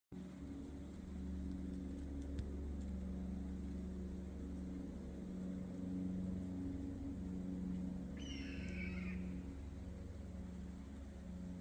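A hawk gives one scream lasting about a second, about two-thirds of the way in, over a steady low drone.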